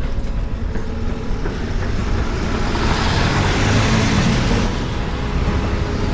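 A lorry drives past close by, its engine and tyre noise swelling about three seconds in and fading a couple of seconds later, over a steady low rumble of street traffic.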